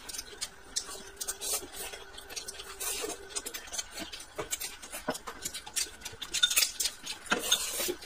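Close-up eating sounds: noodles slurped and chewed from a glass bowl held to the mouth, with many short clicks of chopsticks and mouth smacks, and two louder slurps near the end.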